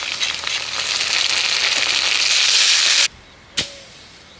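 Ginger-garlic paste sizzling and crackling as it hits hot mustard oil and fried onions in a kadai. It grows louder, then cuts off suddenly about three seconds in, and a single sharp knock follows half a second later.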